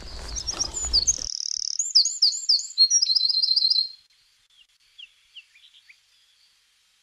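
A songbird singing: a run of high chirps and sweeping whistles ending in a quick trill, then a few fainter calls. A low rustling noise, likely handling of the detector or mic, underlies the first second and stops abruptly.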